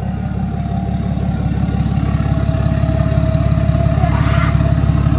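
BMW X5 diesel engine idling with its DPF deleted, the exhaust pulses coming through loud and rapid, with a thin turbo whistle that slowly drops in pitch.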